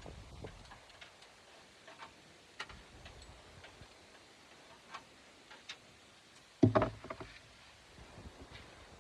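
Scattered light clicks and ticks of hand tools on metal parts in an engine bay. About seven seconds in comes a louder short clatter of a few knocks.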